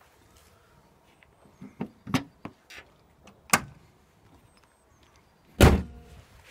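Honda CR-V bonnet being shut: a few light knocks and clicks, then one loud, heavy slam about five and a half seconds in.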